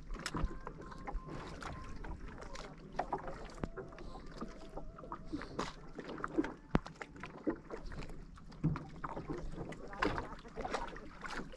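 Small waves lapping and slapping against the hull of a wooden outrigger canoe, with scattered small knocks and clicks.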